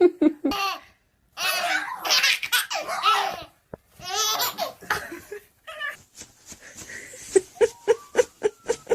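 A young child laughing hard: long, wavering bursts of laughter, then a quick run of short ha-ha laughs near the end.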